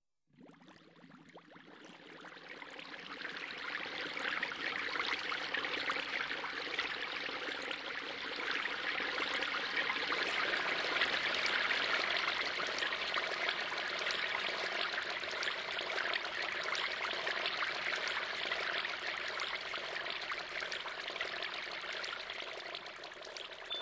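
Steady sound of running water, fading in over the first few seconds and then holding even.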